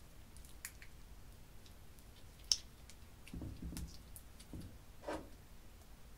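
Faint squishing of soft glitter slime pressed down by hand into a tray of clear slime, with scattered small clicks and one sharp click about two and a half seconds in.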